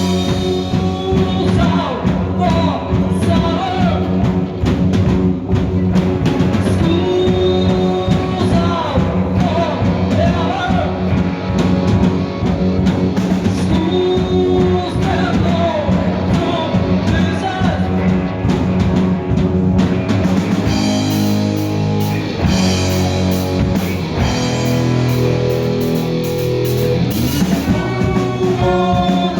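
A rock band playing with a singer over electric guitar, bass and drum kit. About twenty seconds in the vocals drop out and the band plays an instrumental passage of held chords and drum hits, and the singing returns near the end.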